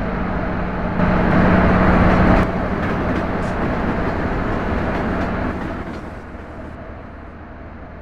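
HO scale model train rolling past on its track, a steady clatter of wheels on rail with a low motor hum. It starts suddenly, is loudest about a second in, and fades away as the train moves off.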